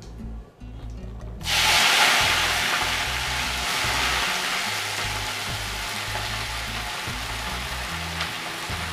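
Chopped spring onions hitting hot tempering oil in a pan: a loud sizzle starts suddenly about a second and a half in, then eases into a steady frying hiss.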